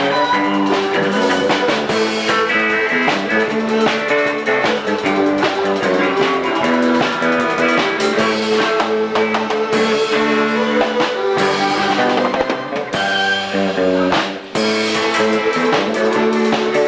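Rock band playing, with drum kit, guitar and a steady beat. The music drops out for a moment about fourteen and a half seconds in, then comes straight back.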